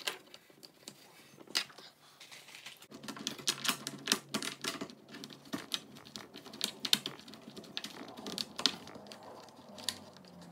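Irregular light clicks and taps of small screws and fittings being handled and pressed into the edges of a laminated flat-pack cabinet panel during assembly.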